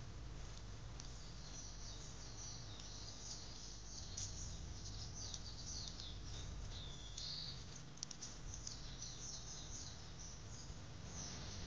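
Small birds chirping and singing in quick high phrases, with a few whistled notes that curve up and down, over a steady low background rumble.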